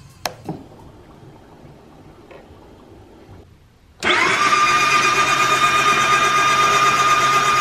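Two light clicks of the handlebar switch, then about four seconds in the Yamaha Apex snowmobile's engine spins up abruptly and runs at a steady, unchanging pitch with a prominent high whine.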